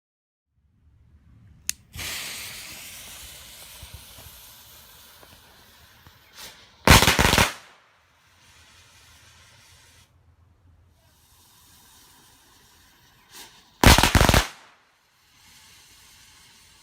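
Winda Handle Tuff barrage firecrackers going off: a fuse hisses and fades, then a small pop is followed by a loud, dense burst of rapid cracks lasting about half a second. A second small pop and loud burst come about seven seconds later.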